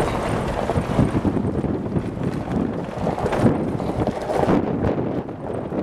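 Off-road 4x4 driving along a rough dirt track, heard from inside the cabin: a steady driving noise with frequent short knocks and rattles from the bumps, and wind on the microphone.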